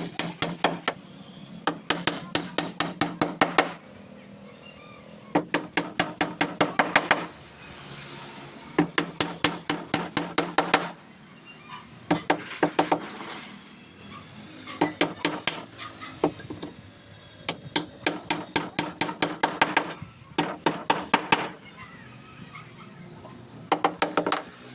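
Hammer driving nails through plywood hull planking into a wooden boat's frame. The blows come in about eight runs of quick strikes, roughly five or six a second, with short pauses between runs. Within most runs the blows grow louder.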